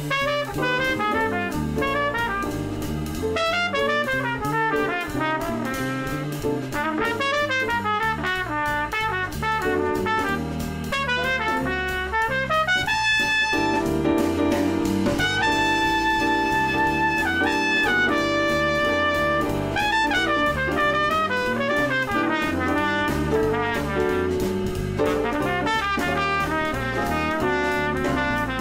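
Instrumental background music: a jazz tune with a brass lead, trumpet-like, over drums, playing melodic runs and held notes.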